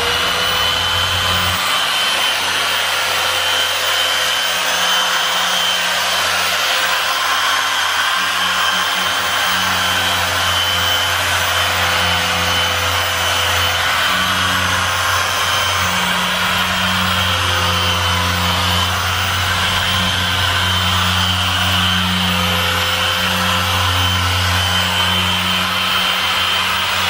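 Harbor Freight dual-action polisher with a 5.5-inch orange foam pad running steadily against a boat's gel coat hull, a constant motor whine, as it cuts and polishes out oxidation.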